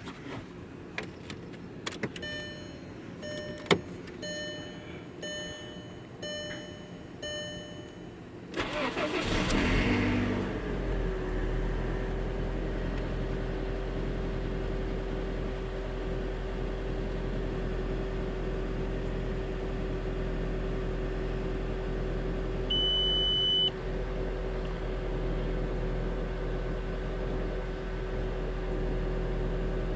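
A repeating electronic chime and a few clicks, then a 2002 Volkswagen Jetta's 1.8-liter turbocharged four-cylinder engine cranks and starts about nine seconds in and settles into a steady idle with a constant whine over it. This is the startup noise the owner cannot identify. A single loud beep sounds about two-thirds of the way through.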